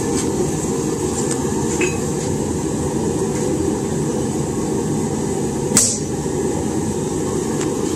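A single sharp hammer blow, about six seconds in, on a steel maker's mark stamp held against the red-hot railroad spike blade on the anvil, stamping the mark into the hot steel. A steady low rushing noise runs underneath.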